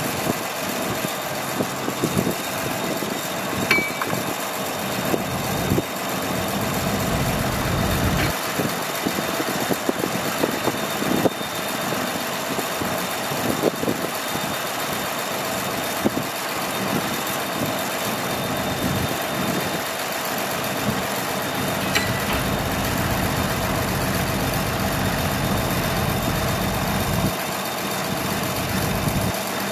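Heavy diesel earthmoving machinery running steadily, with occasional sharp metallic clanks.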